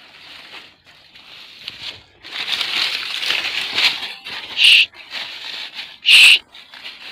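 Leaves and dry undergrowth rustling and crackling as a hunting dog and the person filming push through brush, louder from about two seconds in. Two short, sharp, loud high-pitched sounds come near the end, about a second and a half apart.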